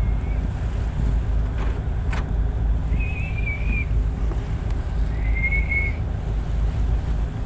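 A tugboat's diesel engine runs with a steady low rumble, with wind on the microphone. Three short high whistles, each under a second, sound over it, and there is a single sharp click about two seconds in.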